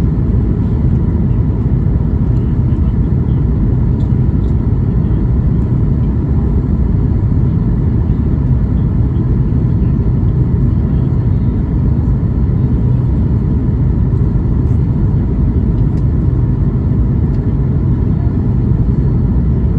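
Steady low cabin rumble of a Boeing 737 MAX 8 in flight, heard from inside the cabin: engine and airflow noise from its CFM LEAP-1B engines.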